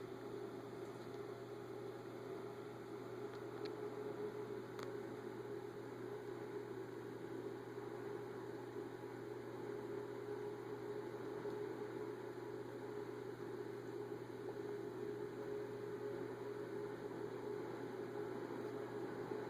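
Steady electrical hum with an even hiss, unchanging throughout, with a couple of faint ticks about four to five seconds in.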